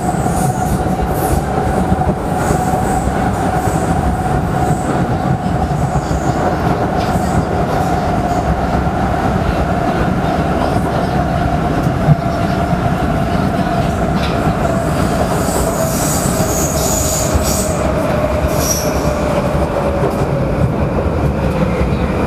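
Prague Metro train running through a tunnel: a steady rumble of wheels on rail with a whine that slowly falls in pitch, and one sharp knock about twelve seconds in.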